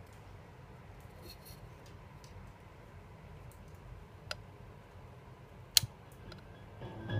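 Faint hiss and hum from a 1960s Blaupunkt VW car radio's speaker as it is tuned by hand between stations, with two sharp clicks about four and six seconds in. A station begins to fade in at the very end.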